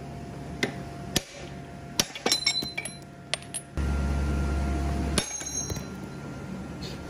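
A few sharp metal clinks from a small hammer tapping on metal held in a bench vise, several leaving a short ringing tone. A low hum joins for about a second and a half near the middle.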